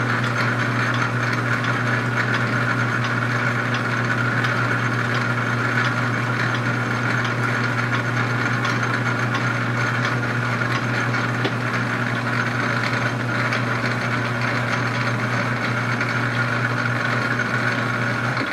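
Metal lathe running at a steady speed while a single-point threading tool takes a light scratch pass on a steel rifle barrel's muzzle: a steady hum of motor and gearing with faint ticking from the cut.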